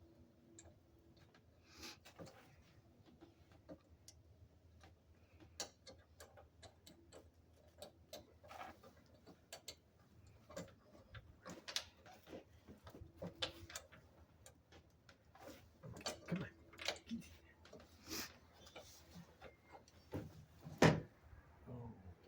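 Irregular small clicks and knocks of hand tools and metal bolt hardware being worked while a truck-bed tool box is bolted in, with one louder knock near the end.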